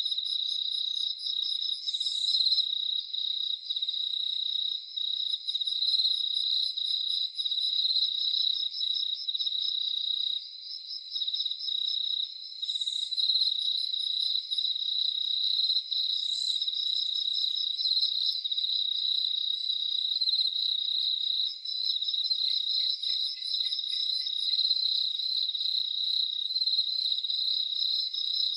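Crickets chirping in a steady chorus of fast, even trills, with fainter high, rapid ticking from other insects above them and a few short higher chirps.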